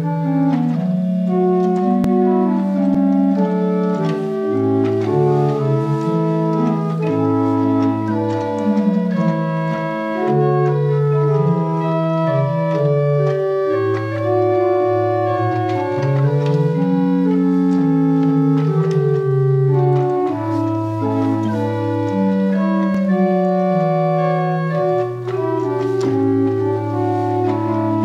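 Pipe organ playing slow, sustained chords, several parts moving under one another, with notes held for a second or more.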